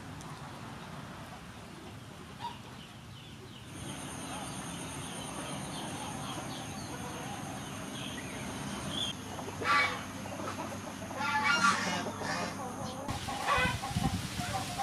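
Chickens clucking several times, starting about ten seconds in, over a faint steady high-pitched whine.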